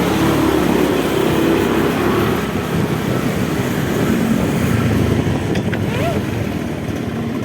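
Small brush-cutter engine on a motorised bicycle running, its steady high-rev note dropping away at the start into a rougher, uneven running sound.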